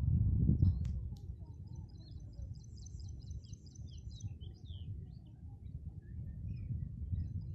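Small birds chirping in quick runs of high notes about a third of the way in and again near the end, over a low rumbling noise that is loudest in the first second.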